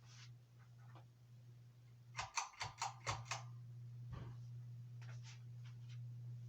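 Hampton Bay Glendale ceiling fan running on medium speed with a steady low hum. A quick run of about six clicks comes around two to three seconds in, then a soft thump about a second later.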